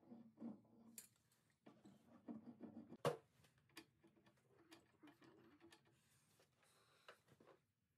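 Faint scraping, rustling and small clicks of a hand tool and gloved hands working on copper water pipes and debris in an opened wall cavity, with one sharp metallic click about three seconds in.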